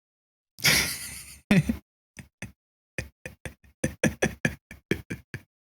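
A man's voice without words: a breathy exhale, then a run of short, separate voiced sounds, about four a second.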